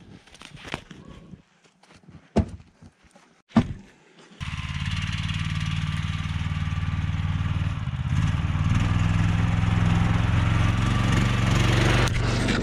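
A few separate knocks of firewood being handled, then about four seconds in an engine comes in suddenly and runs steadily at a constant speed, a little louder near the end.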